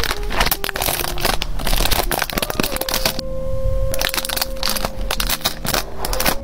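Thin clear plastic packaging crinkling and rustling in irregular bursts as sleeves of sticker sheets and clear plastic pieces are handled, with a steady held tone underneath from about halfway in.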